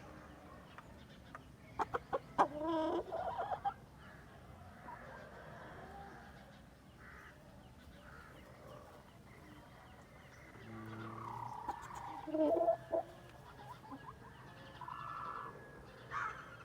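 Chickens clucking and calling: a few sharp clicks about two seconds in, then a wavering call, with another call around twelve seconds and fainter ones near the end.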